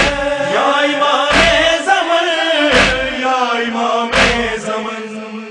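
Voices chanting an Urdu noha refrain without clear words, over a heavy beat about every second and a half.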